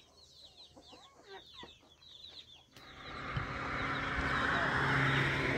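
Chickens peeping and clucking in short, high, falling chirps. About three seconds in, a louder steady rushing noise with a low hum starts suddenly and covers them.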